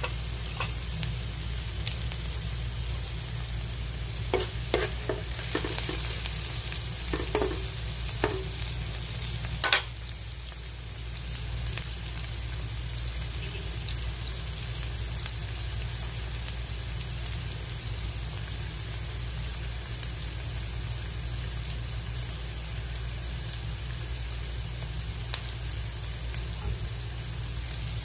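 Sliced onion and ginger sizzling in hot cooking oil in a nonstick pan, a steady frying hiss. A few sharp knocks in the first ten seconds, the sharpest about ten seconds in.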